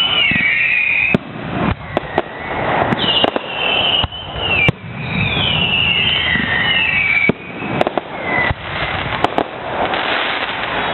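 Fireworks going off: sharp bangs about once a second over continuous crackling. High wavering squeals rise and fall through much of it.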